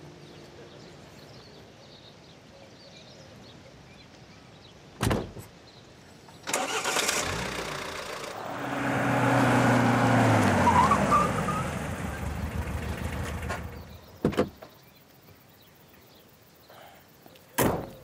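Pickup truck driving up, its engine note falling as it slows to a stop. Short car-door thumps come once before it and twice after it.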